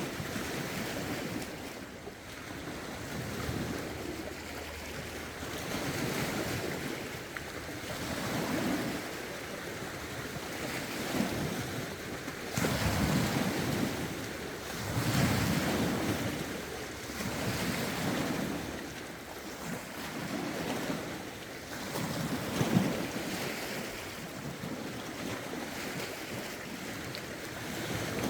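Lake waves washing in against the shore, one swell about every two seconds, with gusty wind buffeting the microphone.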